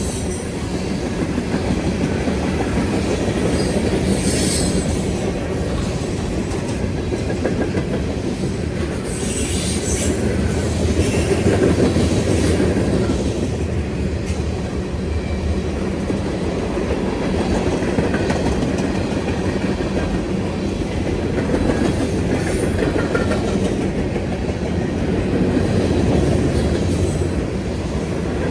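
Freight train cars rolling past with a steady heavy rumble and wheel clatter, and brief high wheel squeals now and then.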